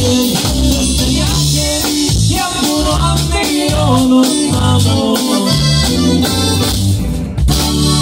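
Live corrido played by a band: a male voice singing over a button accordion, guitar and drums with a steady beat.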